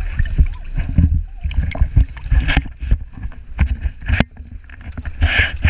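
Choppy sea water sloshing and splashing around a camera held at the surface, in irregular low thumps and sharp splashes.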